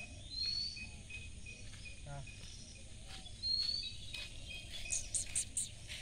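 Outdoor ambience of insects and birds: a short high chirp repeated many times, two rising bird calls, and a fast run of very high pulses near the end, over low background noise. A brief low voice sounds about two seconds in.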